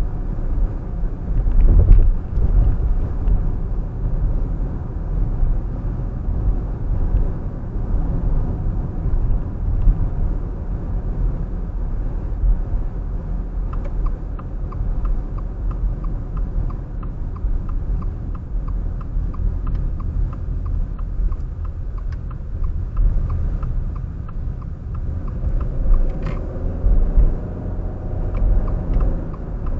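Car driving along a road: a steady low rumble of engine and tyres. Midway a regular light ticking runs for about ten seconds.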